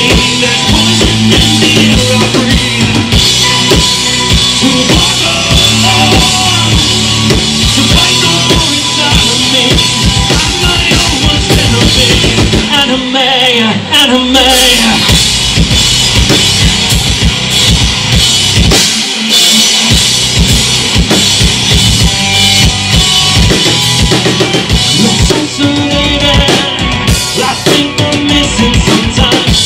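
Live rock band playing loud: distorted electric guitars, bass and a pounding drum kit in an instrumental stretch. About halfway through, the low end drops away with a falling slide, then the full band comes back in.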